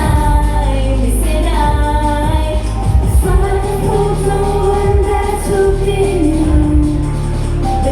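Idol pop song with female singing over a loud, heavy bass beat; the vocal line holds long, wavering notes and steps down in pitch near the end.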